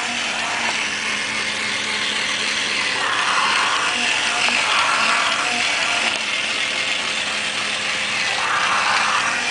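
Battery-powered walking plush kitten toy: its small electric motor and plastic gearbox running steadily with a ratcheting, grinding mechanical noise as it walks.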